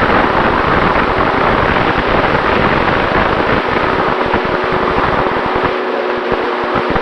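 Rushing airflow and wind buffeting on the onboard camera microphone of an FX-79 flying-wing RC plane in flight, over the steady hum of its electric motor and propeller. The low buffeting eases about six seconds in.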